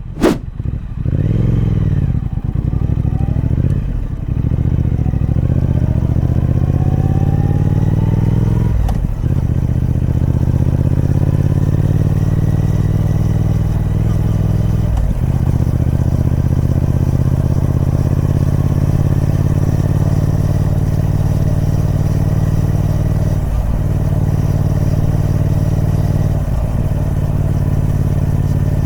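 Triumph Speed Twin 1200's parallel-twin engine through its stock exhaust, accelerating through the gears with three rising pulls broken by shifts, then running at a steady engine speed with two brief throttle lifts near the end. A sharp click sounds at the very start.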